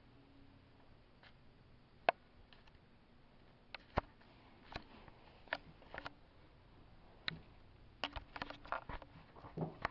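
Handling noise from a handheld camera: scattered sharp clicks and taps, the loudest about two seconds in, with a denser run of them near the end, over a faint steady low hum.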